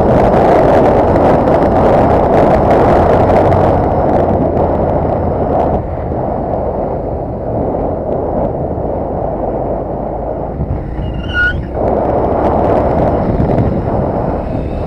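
Motorcycle riding on the open road: wind rushing over the microphone on top of the engine's steady drone, easing off for a few seconds midway. A brief high chirp sounds about two-thirds of the way through.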